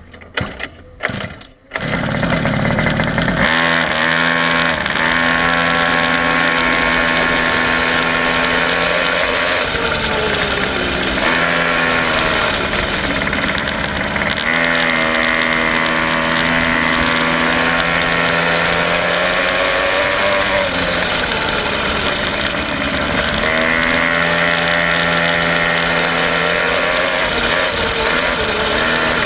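Quad bike engine catching after a few short knocks about two seconds in, then running loud and close, its pitch dropping and rising again several times as the revs change.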